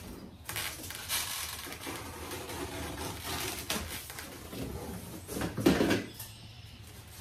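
Cardboard shipping box being pulled open by hand: rustling and scraping of stiff cardboard flaps, with a louder bump about six seconds in.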